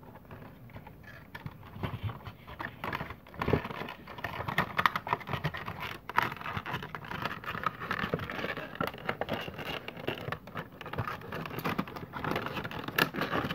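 A Funko Pop vinyl figure's cardboard box being opened and handled: irregular scratching, scraping and rustling of cardboard with small clicks, and a little crinkling.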